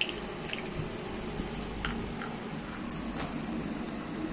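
Light plastic clicks and taps as a pug puppy noses, chews and pushes a small plastic cup across a stone floor, about nine irregular taps, over a steady background hum.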